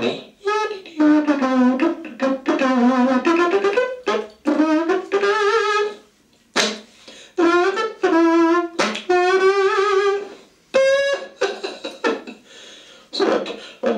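Wordless, wavering notes from a voice, buzzy like a horn. They come in several short phrases with gaps between them, and each note slides and wobbles in pitch.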